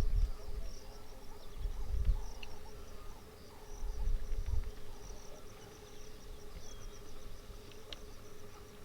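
Natural waterside ambience: insects chirping in a fast, even pulse high up, over a faint steady hum, with low rumbles at the start, about two seconds in and about four seconds in.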